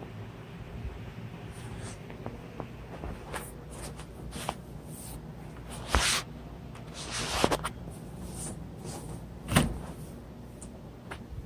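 Scattered clicks, knocks and rustling as a door is handled and opened, with a sharp knock about six seconds in, a brief scraping rustle just after, and a louder thud near the end.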